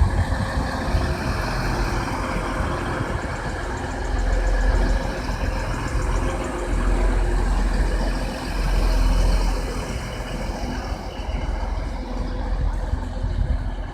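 Class 185 diesel multiple unit running as it pulls into the platform: a steady engine rumble that swells a few times, with faint steady tones over a wash of noise.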